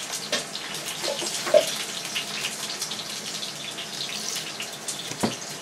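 Water pouring steadily from a glass pitcher into a stainless steel pressure-cooker pot, splashing onto the meat and tomato paste inside, with a light knock near the end.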